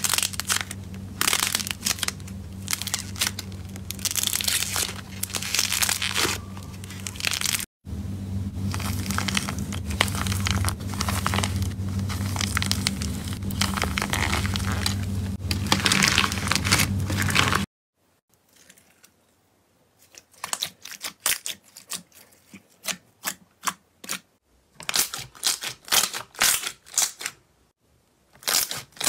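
Hands squeezing a squishy stress ball and pulling apart pink crunchy slime: dense crackling and tearing over a steady low hum. After a cut about 18 seconds in, glossy green slime pressed in a tub of liquid gives separate sticky pops and clicks in short clusters.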